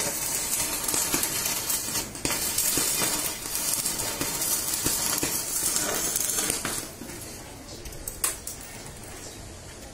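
Stick-welding arc from an ARC 200 PRO inverter welder, crackling and sizzling while cutting metal, with a short break about two seconds in. The arc stops about seven seconds in.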